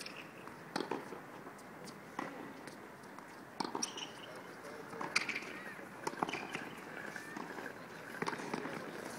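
Tennis balls struck by rackets in a rally, sharp pops about every second and a half, over a low murmur of voices.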